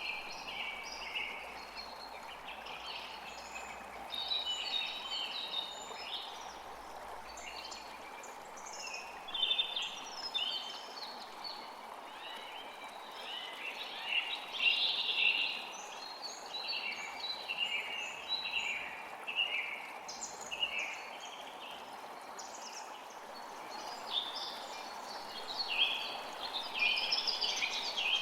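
Several songbirds singing and chirping repeatedly over the steady rush of a forest creek.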